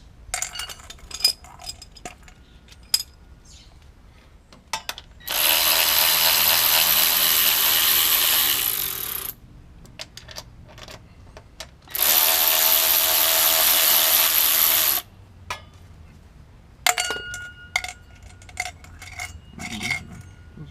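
Small impact wrench run twice, for about four seconds and then about three, backing out fasteners, with scattered metal clinks and taps of tools and loose parts before, between and after.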